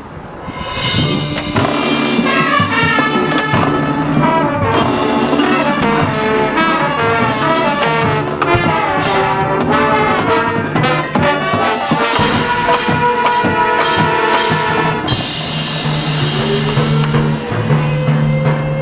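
High school marching band playing, brass section carrying the tune over drums, striking up about a second in.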